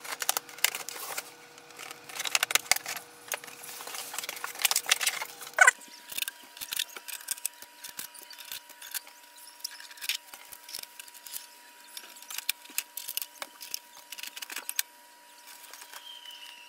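Cardboard carton and packaging being handled: a blade slits the box tape with dense scraping and rustling for about six seconds. After that come scattered clicks and taps as blue shipping tape is peeled off the printer's plastic casing.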